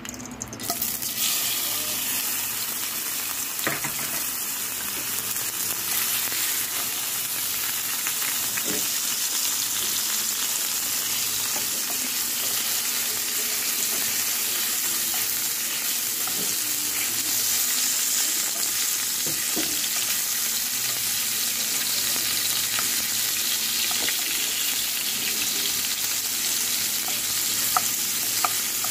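Cubed pork sizzling in hot oil in a frying pan, starting about a second in as the pork goes in and staying steady as it sautés to brown. A wooden spatula stirs it, with a few light knocks against the pan.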